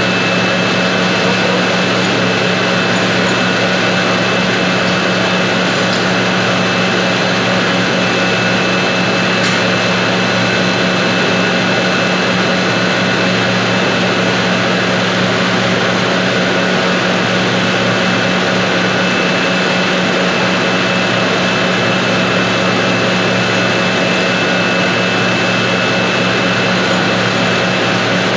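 Factory machinery running with a steady, loud drone: a constant low hum under a thin high whine.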